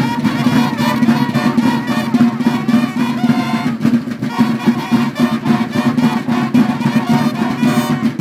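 School marching band playing: a row of large field drums beating a fast, even rhythm with brass horns sounding sustained notes over them.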